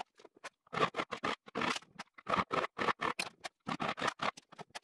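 A turning chisel chipping aluminium out of the centre of a pulley: a quick, irregular run of short sharp scraping cuts, about three or four a second.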